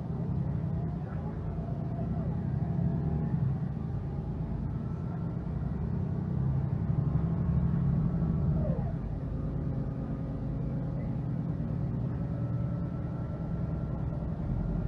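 Mercedes-Benz Citaro G articulated bus with its OM457hLA diesel engine and ZF Ecomat automatic gearbox running under way. It makes a low, steady drone with faint whines gliding up and down in pitch, and it swells louder about halfway through before easing back.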